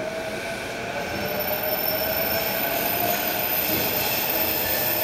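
A train passing on the tracks beside the path: a steady whine in several pitches over rumbling noise, growing louder over the first second or two, its main tone rising slightly and settling back.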